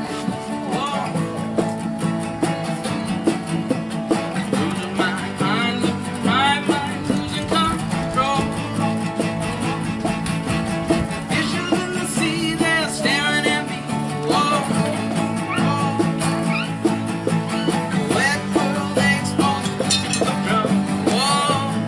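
Rock band playing live: guitar-driven rock with a voice singing over it.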